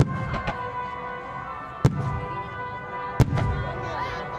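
Fireworks bursting: three sharp bangs, one at the start, one near two seconds in and one just past three seconds, each followed by a low rumble and crackle. Steady background music plays underneath.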